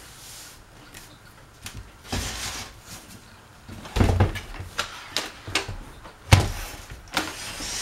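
Handling knocks and bumps from a box fan being moved and turned around, not running: several separate thumps, the loudest about four seconds in and again a couple of seconds later, with light clicks between.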